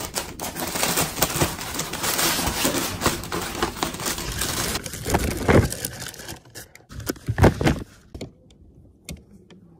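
Tissue wrapping paper rustling and crinkling as sneakers are unwrapped and lifted from their shoebox, with two louder handling knocks partway through before the rustling dies down.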